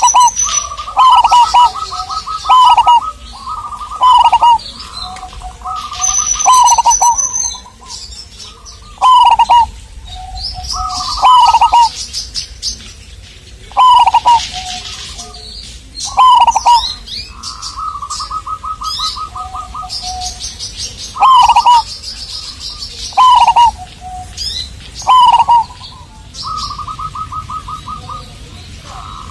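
Zebra dove (perkutut) of the local pulanggeni type cooing over and over: each phrase a quick run of rapid notes followed by a few falling coos, repeating every two to three seconds. Smaller birds chirp and twitter higher up between the phrases.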